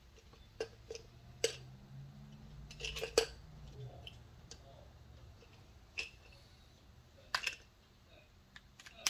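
Scattered sharp clicks and light knocks of small hard objects being handled and set down, a dozen or so at irregular intervals, the sharpest about three seconds in.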